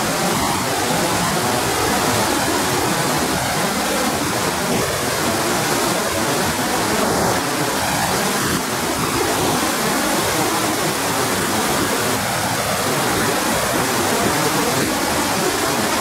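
Whitewater river rapids rushing over boulders: a steady, loud, unbroken wash of water noise.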